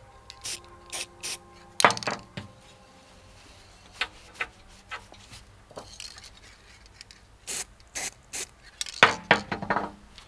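Scattered metallic clinks and knocks from a spray-paint can and tools being handled on steel deck fittings. Several come close together in the first two seconds and ring briefly. A few quicker clusters follow near the end.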